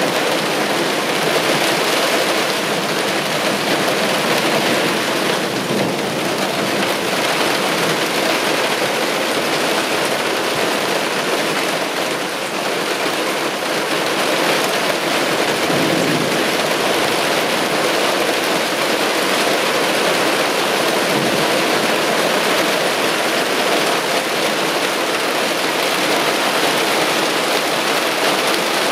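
Heavy downpour of large raindrops, a steady dense rush of rain hitting surfaces, with no thunderclap standing out.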